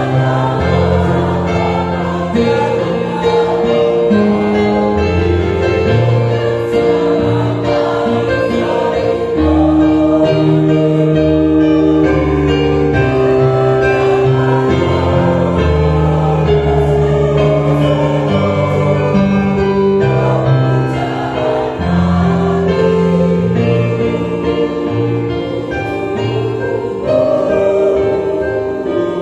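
A mixed choir of men's and women's voices singing a hymn of praise in harmony, with long held chords that shift every second or two.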